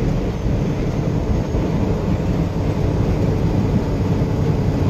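Steady low road and engine rumble inside the cab of a moving vehicle, with no distinct events.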